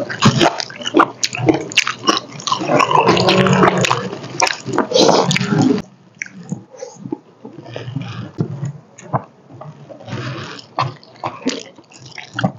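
Close-up eating sounds: chewing and lip-smacking with many small clicks from chopsticks and paper takeaway boxes. A loud rushing noise runs under them for about the first six seconds, then cuts off abruptly, leaving only the quieter clicks and chewing.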